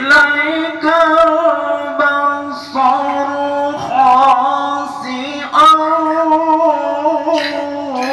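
A single voice reciting Quranic verses in a melodic, sung style, in a few phrases of long held notes that waver in pitch, with short breaks between them.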